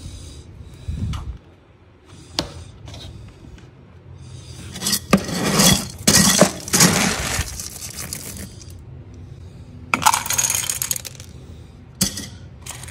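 Dry cat kibble scooped from a storage bin with a plastic scoop and poured into a metal food bowl, the pellets rattling and clinking. There is a long rattling stretch around the middle and a shorter one a few seconds later, with a few knocks of the scoop and bin.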